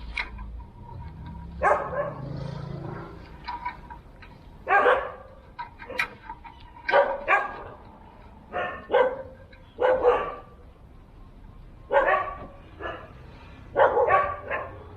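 A dog barking in an irregular series of short barks, a dozen or so, some in quick runs of two to four.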